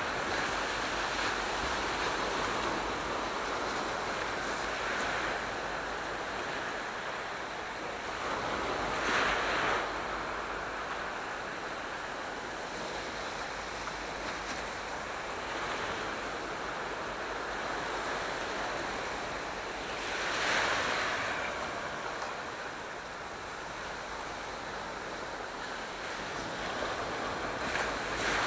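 Sea waves washing on the shore: a steady surf hiss with two louder breaking waves, about nine and about twenty seconds in. Some wind rumbles on the microphone.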